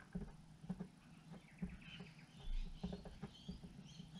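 Faint scattered clicks and taps of a wooden lure blank being handled and lined up under a drill bit that is not running.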